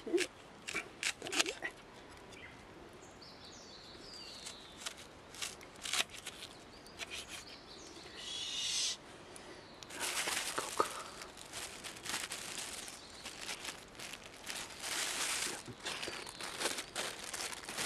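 Irregular clicks and light taps with several rustling bursts of a second or two each: hands cutting and handling vegetables and food packaging for camp cooking.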